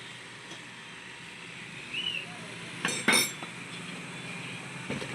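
Two quick metallic clinks of tools or parts about three seconds in, over a steady low background; a short squeak comes just before them.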